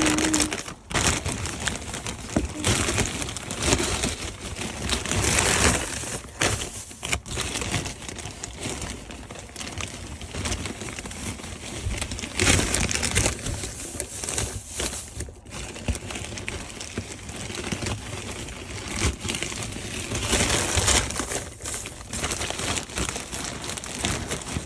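Dry straw bedding rustling and crackling as handfuls are pulled apart and spread in a rabbit hutch, in uneven swells.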